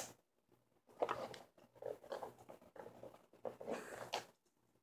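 A click, then irregular faint scraping and rubbing for about three seconds as a screw-on Wi-Fi antenna is turned onto its threaded connector on a mini PC and the unit is handled.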